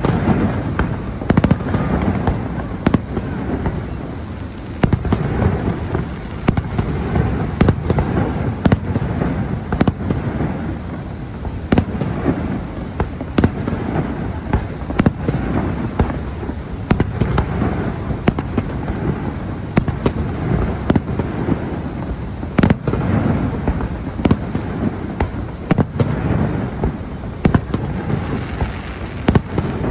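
Fireworks show: a steady run of bangs and crackles from aerial shells bursting, one or two a second, over a continuous low rumble.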